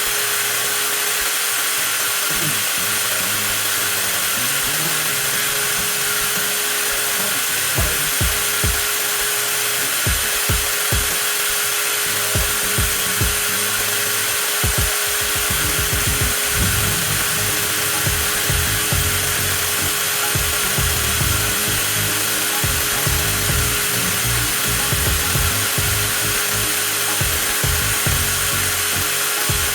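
TOTAL 20V cordless angle grinder motor running steadily, a constant high whine and hiss, kept running to drain its 4 Ah battery in a runtime test. Irregular low thumps come in from about a third of the way through.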